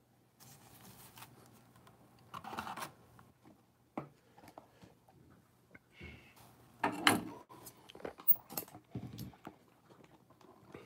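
Gloved hands handling trading cards and a cardboard card box: rustling, sliding and small knocks of card stock and cardboard, with a louder scrape about seven seconds in.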